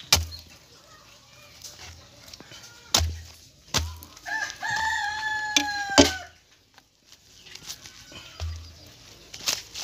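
A rooster crows once, a drawn-out call of about two seconds beginning about four seconds in. Around it come several sharp knocks as a large knife chops through a jackfruit onto a tile surface.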